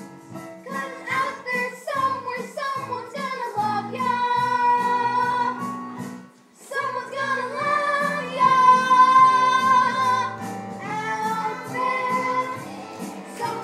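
Singing with musical accompaniment in a stage musical number: held sung notes, with a short break about six seconds in.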